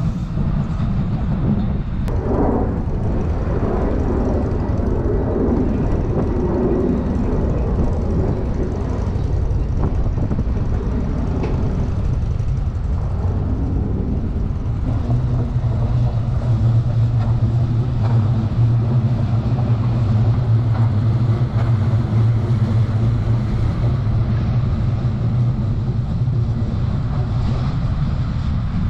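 Steady low vehicle rumble, with a low hum that swells in the second half and fades near the end.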